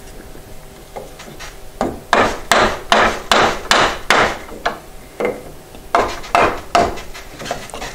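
Hammer blows on a wooden block held against a loose wooden newel post, knocking the post upward to free it from the handrail. About a dozen sharp knocks, two or three a second, start about two seconds in, with a short pause around five seconds in.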